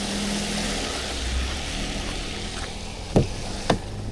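Steady running noise inside a GWM Cannon Alpha hybrid ute, with a low hum under it. Two short, sharp knocks about half a second apart come near the end.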